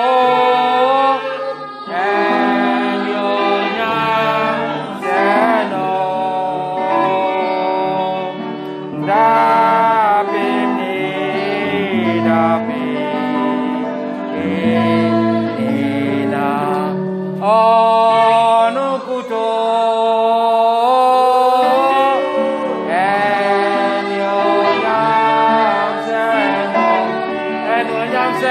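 Gospel worship song: voices singing a melody over instrumental accompaniment.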